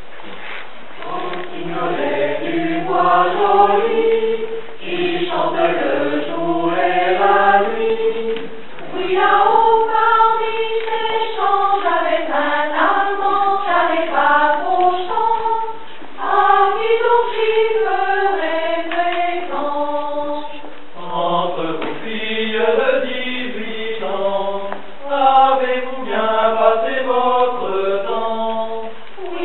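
Mixed choir of men's and women's voices singing a cappella in several parts in harmony, in phrases with short breaks between them.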